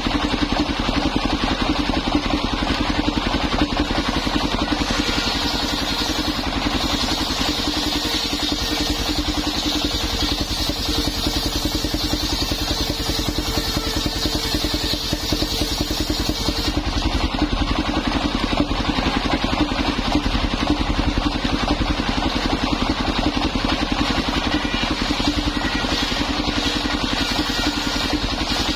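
Engine of a mobile circular sawmill running steadily while its circular saw blade rips a plank of old coconut wood. The hiss of the blade cutting through the wood builds about five seconds in and stops suddenly a little past halfway.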